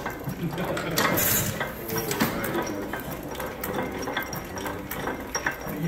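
Antique horizontal stationary gas engine running, its valve gear and moving parts making a steady clatter of clicks, with a brief hiss about a second in.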